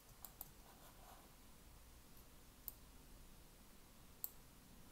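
Near silence broken by a few faint computer mouse clicks, spread out, with the sharpest one near the end.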